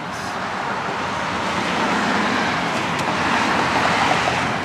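Road traffic going by, a steady rush of tyre and engine noise that slowly builds and then eases near the end.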